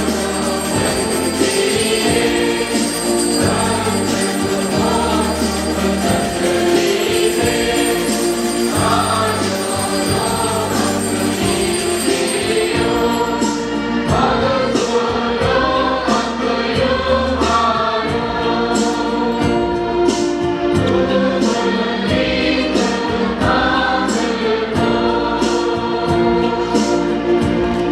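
A choir singing a hymn over instrumental accompaniment with a bass line. About halfway in, a steady light beat of about two strokes a second joins.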